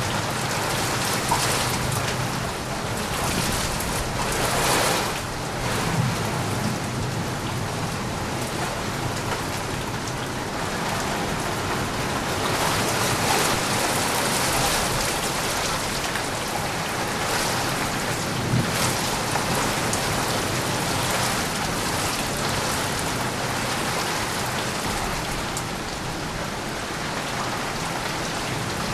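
Steady heavy rain falling, a continuous even hiss with a few brief louder moments.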